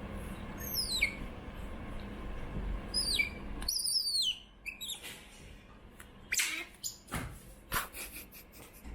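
Pet otter squeaking for food: high, sharp chirps that slide down in pitch, a few of them in the first half, followed by scattered short clicks or rustles.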